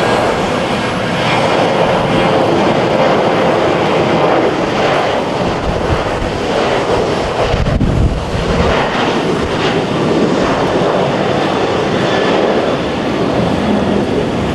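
Boeing 737 NG airliner's twin CFM56-7B turbofan engines at takeoff power, loud and steady through the departure, with a deeper rumble swelling briefly about eight seconds in.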